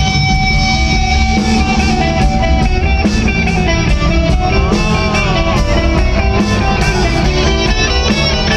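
Live rock band playing an instrumental passage: a lead guitar holds notes and bends them with vibrato over bass and drums, with the harsh, crowded sound of a phone recording.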